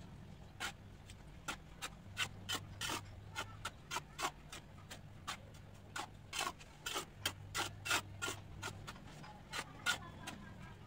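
Repeated irregular gritty scraping strokes of a tool working through a pile of dry cement mix on a concrete floor, over a faint steady low hum.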